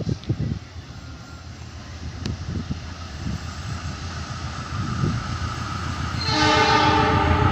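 A diesel locomotive approaching, its engine and rail noise building steadily, then its horn sounding a chord of several steady tones from about six seconds in. Wind buffets the microphone at the start.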